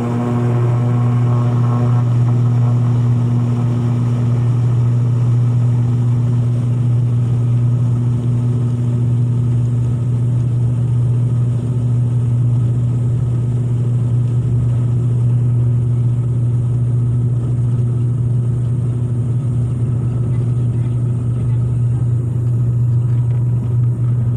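Turboprop airliner's propellers and engines heard from inside the cabin: a loud, steady low drone at high power, settling onto one pitch after a rise in pitch just before.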